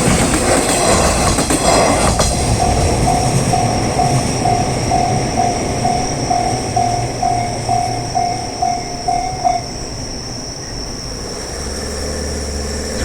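A train passes over a level crossing, its wheels clattering on the rails, and the clatter dies away about two seconds in. The crossing's electronic warning bell keeps ringing at about two strikes a second and stops about three-quarters of the way through, the sign that the crossing is clearing after the train has gone.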